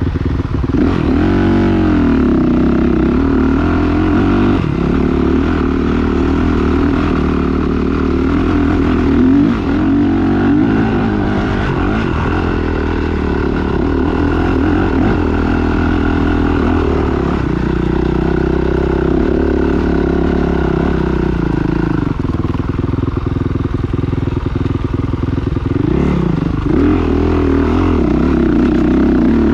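Motocross motorcycle engines revving, their pitch rising and falling over and over without a break.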